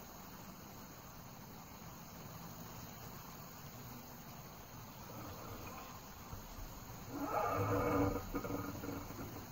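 Crickets and other insects chirping steadily in a field. About seven seconds in, a louder drawn-out call with a low pitch and several overtones lasts for about two seconds.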